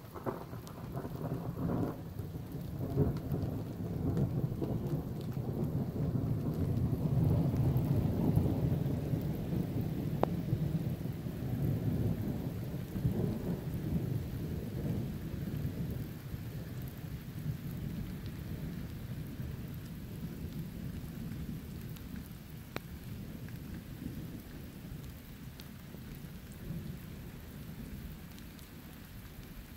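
Long rolling rumble of thunder from a weakening night storm: it starts at once, swells to its loudest about eight seconds in, then slowly fades. Steady rain falls throughout.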